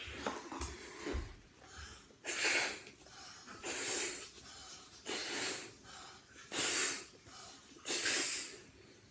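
A child blowing up a party balloon by mouth: five strong puffs of breath into it, about one every second and a half, starting about two seconds in, with quieter breaths between.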